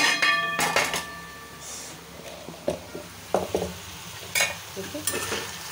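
A metal spoon clinks against a mixer jar with a brief ringing in the first second, as onion paste is scraped out of it, followed by scattered taps and knocks of spoon on pan over a steady sizzle of drumsticks and onion frying.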